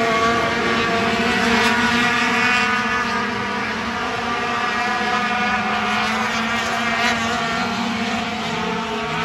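A field of sport-truck race engines running around a paved oval, several engines droning together, their pitches sliding slowly up and down as the trucks pass.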